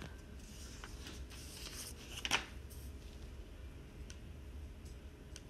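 Quiet classroom room tone: faint scattered rustles and light clicks over a steady low hum, with one louder brief rustle a little over two seconds in.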